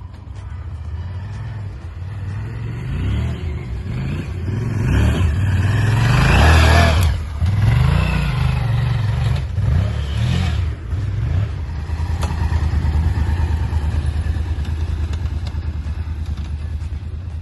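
Honda Varadero XL1000V's V-twin engine revving under throttle, its pitch rising and falling several times. It is loudest about six to seven seconds in, then settles to a steadier run.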